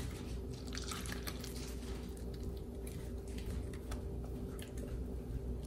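A gloved hand mixing flour and warm water into a yeast dough in a stainless steel bowl: soft squishing with scattered light clicks, over a steady low hum.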